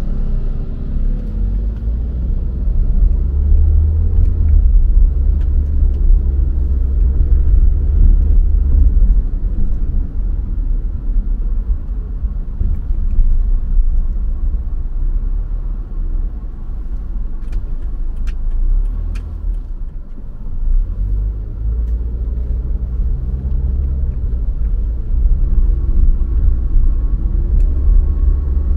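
A car driving on city streets: a steady low rumble of engine and tyres on the road. The engine note shifts in pitch shortly after the start and again near the end.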